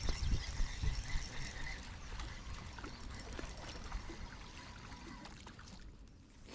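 Water splashing and trickling, with a few low thumps in the first second and small clicks, fading out toward the end.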